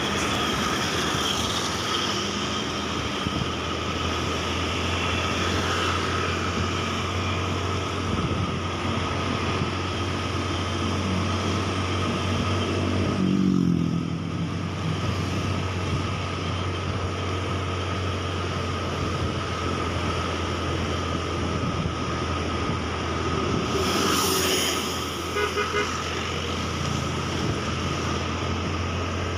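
Motorcycle riding along a road: the engine running steadily under wind and road noise. About halfway through there is a louder swell with a falling pitch.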